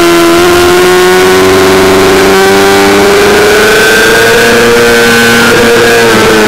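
Yamaha YZF-R6 inline-four engine at high revs under acceleration, its pitch climbing slowly and steadily, with wind rushing past the bike.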